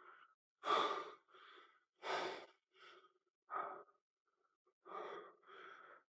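A man breathing hard from exertion: heavy breaths in and out, about one a second, some with a slight sigh.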